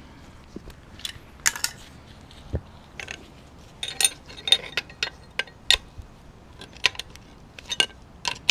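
Irregular metallic clicks and clinks of hand tools, a 17 mm wrench and vice grips, working at the tight top nut of a removed rear shock absorber. The clicks come in scattered clusters.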